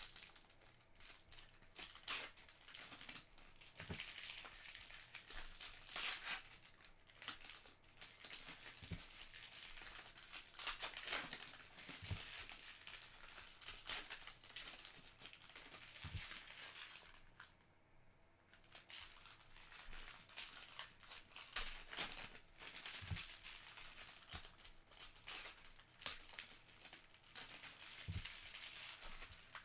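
Topps Chrome trading-card pack wrappers crinkling and tearing as the packs are ripped open and handled by hand, with a short lull about two-thirds through. Occasional soft knocks are heard among the crinkling.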